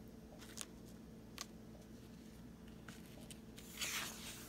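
Quiet handling of a glossy paper insert: a couple of light clicks, then rustling as the sheet is moved near the end.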